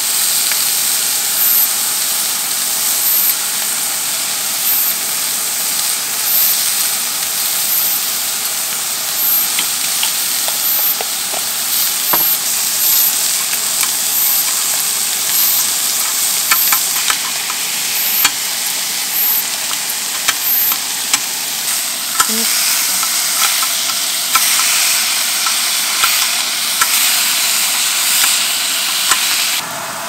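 Eel fillets sizzling as they fry on a hot griddle pan, a steady hiss. Sharp crackles and snips are scattered through the middle and later part, including kitchen scissors cutting the fillets.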